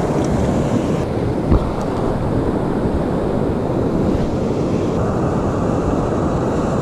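Ocean surf washing and breaking around the listener, a steady rush of waves mixed with wind buffeting the microphone. A brief thump about a second and a half in.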